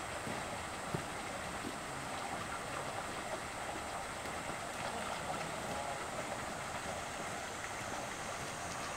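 Steady rush of water pouring from an inlet pipe into a pond, with one light knock about a second in.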